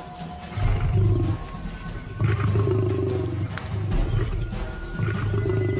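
Lions growling in three deep, rasping bouts, about half a second in, from about two seconds to four, and again near the end. Their snarling is aggression over a contested kill. Background music plays underneath.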